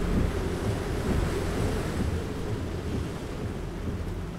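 Steady rushing of heavy rain and road noise heard inside a moving car's cabin, with a low rumble underneath.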